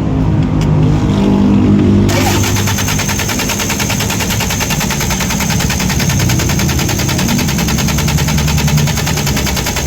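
Diesel engine cranked on its starter without firing: a fast, even churning that begins abruptly about two seconds in, after a low steady hum. The engine doesn't catch because the injection pump is believed to be delivering no fuel to the injectors.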